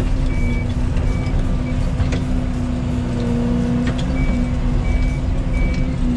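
Yanmar ViO80 mini excavator's diesel engine running steadily, with its travel alarm beeping about every three-quarters of a second as the machine tracks into position. The beeping stops for a couple of seconds mid-way and then starts again.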